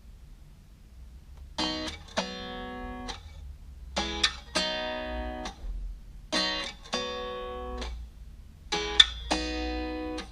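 Acoustic guitar strummed in chords, starting about a second and a half in. It plays four short, ringing phrases of a few strums each, about two and a half seconds apart.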